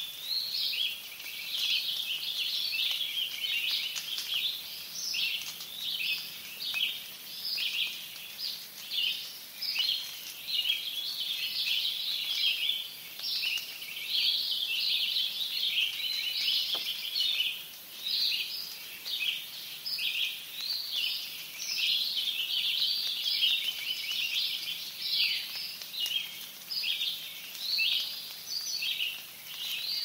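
Dawn chorus of several songbirds singing densely and without a break, over a steady hiss of light rain.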